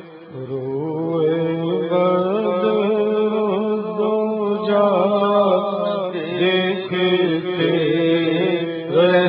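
A man singing a naat, an Urdu devotional poem in praise of the Prophet, solo and without instruments into a microphone. He holds long, ornamented melodic lines over a steady low drone.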